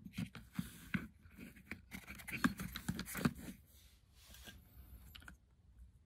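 Small plastic clicks and scrapes as fingers handle the front end of a Tamiya TA06 RC chassis, moving the wheels and the ball-jointed steering links. The handling noises are dense for about the first three and a half seconds, then thin out to a few faint touches.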